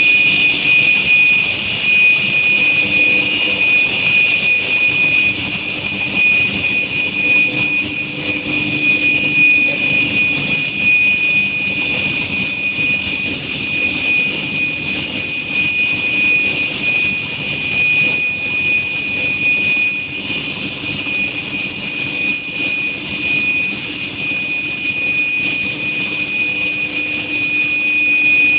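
Induction heat treatment machine running with a steady, loud, high-pitched whine over a hiss, with a fainter low hum underneath.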